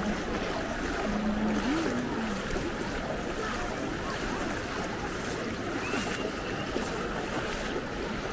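Bare feet wading and splashing through shallow floodwater over paving stones, over a steady wash of water noise and faint voices of a crowd.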